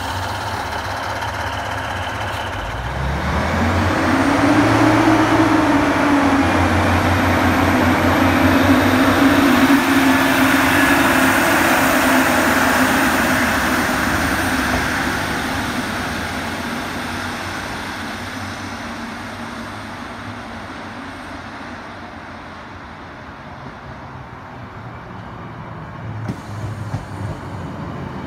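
ScotRail Class 156 diesel multiple unit pulling away: its underfloor Cummins diesel engines rev up about three seconds in and run under power with wheel and rail noise, then fade as the train draws off. A few low knocks come near the end.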